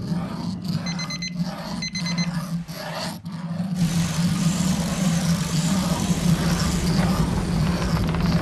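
Two short bursts of rapid, high electronic beeping, about a second apart, over a steady low hum. About four seconds in, a dense hissing rush comes in and the hum carries on beneath it.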